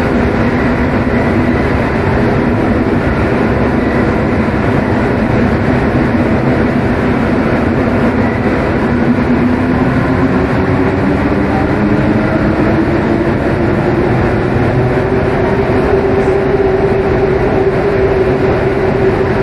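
Rubber-tyred Paris Métro train running through a tunnel: a steady rolling rumble with a motor whine that rises in pitch about halfway through, as the train picks up speed, then holds steady.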